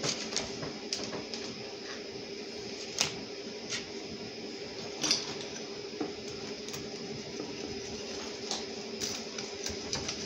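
A pizza cutter wheel rolling across a plastic cutting board, with scattered light clicks and taps as it cuts and bumps the board, over a steady background hum.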